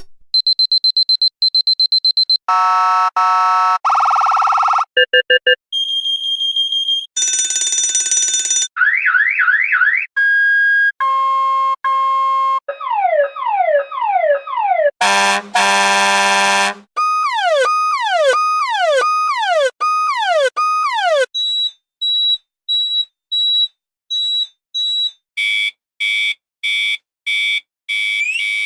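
A run of separate electronic alert and prompt tones: rapid pulsed beeps, harsh buzzer tones, short beeps, repeated rising and then falling pitch sweeps, a loud buzz, wavering siren-like sweeps, and evenly spaced short beeps near the end.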